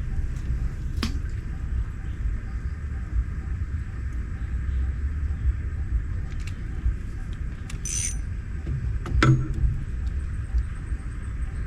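Steady low rumble with a few scattered sharp clicks, a short high rasp about eight seconds in, and a louder knock just after.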